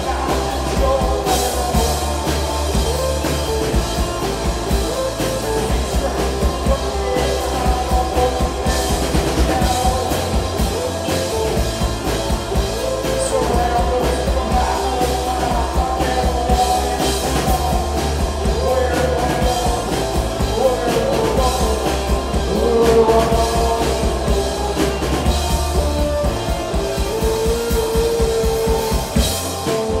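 Live rock band playing loud: distorted electric guitars over a driving drum kit and heavy low end.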